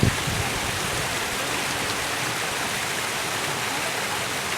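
Waterfall rushing steadily as an even wash of water noise, with a brief low thump right at the start.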